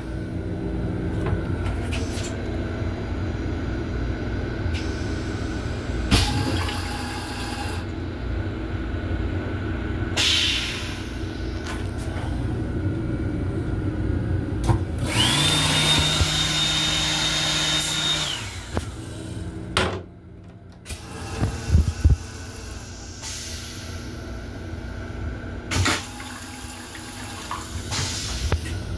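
Restroom fixtures of a Long Island Rail Road M7 railcar being worked over the car's steady running rumble: several short hisses of water from the sink unit. About halfway through, a motor in the sink unit runs for about three seconds with a steady high whine, followed by a few sharp knocks.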